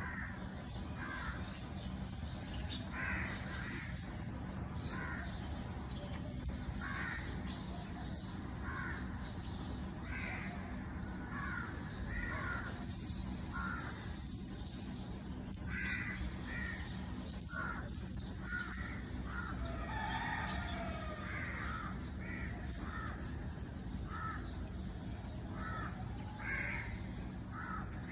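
Birds calling: a string of short calls about once a second, with a lower, falling call about twenty seconds in, over a steady low background hum.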